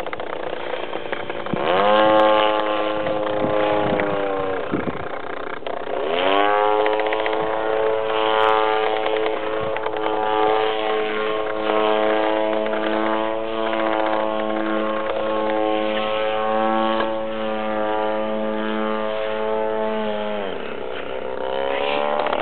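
Engine of an MT50 radio-controlled model plane in flight, its note climbing sharply, holding steady, then dropping off, twice over, with a third climb near the end. The longest steady stretch holds for about fourteen seconds.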